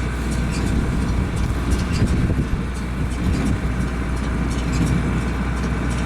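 Farm tractor engine running steadily, a low, even rumble.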